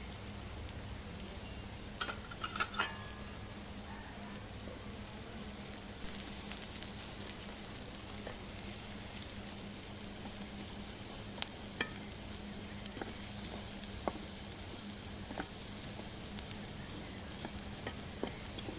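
Diced onions frying and sizzling in a nonstick grill pan while a wooden spatula stirs them. A quick cluster of sharp clicks and knocks comes about two seconds in, then scattered single clicks.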